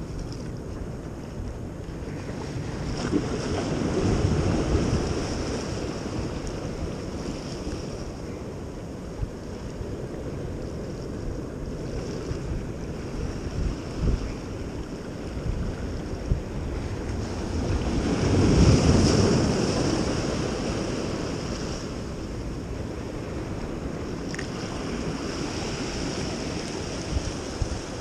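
Ocean surf washing against rocks, swelling up twice, with wind buffeting the microphone.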